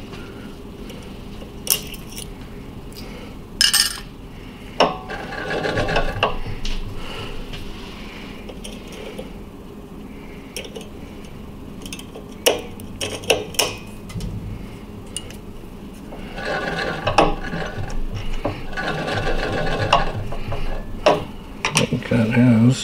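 Pliers breaking and picking off leftover shards of a vacuum tube's glass envelope, with sharp clinks of glass and pliers and several stretches of crunching, scraping glass.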